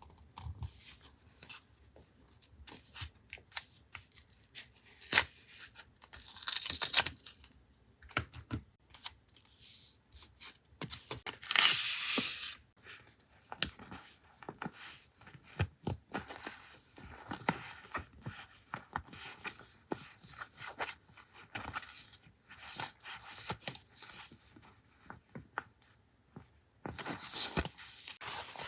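Paper and wrapping being handled close up: rustling and tearing, with many small taps and clicks. Longer bursts of tearing or rustling come about six seconds in, about twelve seconds in, and again near the end.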